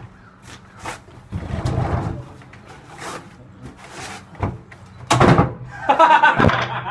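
Wooden porch table being knocked and banged: a scuffling noise a second or so in, then two sharp knocks, the second, about five seconds in, the loudest. A voice calls out near the end.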